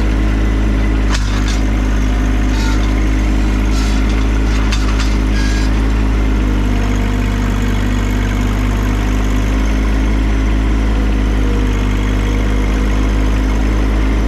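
John Deere 2025R compact tractor's three-cylinder diesel engine running steadily, with a few short knocks in the first half.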